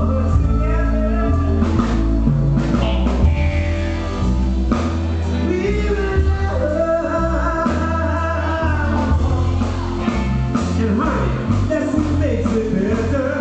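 Live band playing rock-style music: a man singing over guitar and a drum kit, amplified through the stage sound system.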